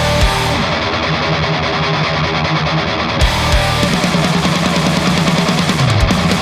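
Heavy metal music: high-gain distorted electric guitar through a Diezel VH4 tube amplifier, playing low chugging riffs over drums. The highest sounds drop away from about half a second in until about three seconds in, then the full mix comes back.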